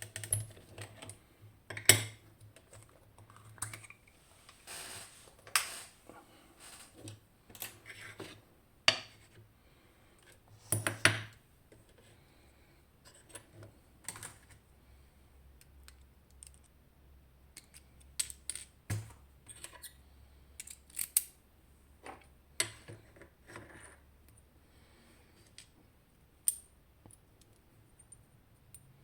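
Irregular clicks and knocks of small metal parts: a picked DOM RS Sigma pin-tumbler lock cylinder and tools being handled as the lock is taken apart, the loudest knocks about two and eleven seconds in.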